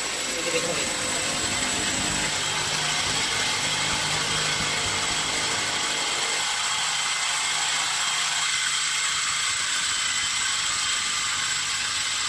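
Electric drill running steadily as it bores into an interlocking mud brick.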